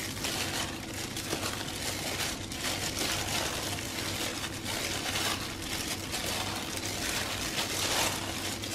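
Hands in thin plastic gloves squeezing and tossing sliced radish and stir-fried beef in a stainless steel bowl: continuous irregular crinkling of the gloves with soft wet squishing of the food.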